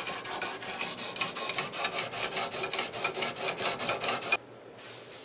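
Oiled medium hone of a Gatco guided sharpening system stroked rapidly back and forth along a clamped machete's edge: a quick, even rasping of stone on steel, several strokes a second. It stops suddenly about four seconds in.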